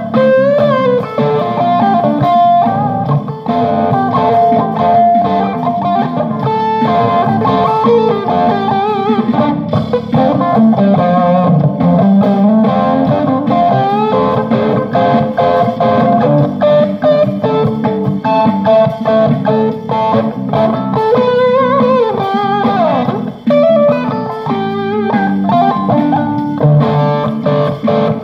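Electric guitar jamming: single-note lead lines with string bends over a fuller, steady lower sound.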